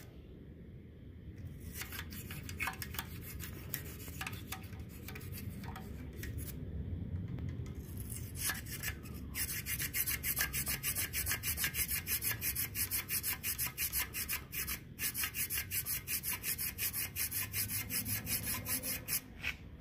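A long twisted-wire gallery brush scrubbing inside the oil passages of a cast-iron Willys L134 engine block, loosening dirt from the galleries. It starts as irregular scratching, then from about nine seconds in settles into a quick, even in-and-out rub of about three strokes a second.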